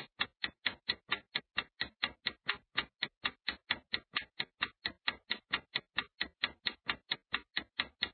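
Countdown-timer ticking sound effect: quick, even clock ticks, about four or five a second, counting down the seconds.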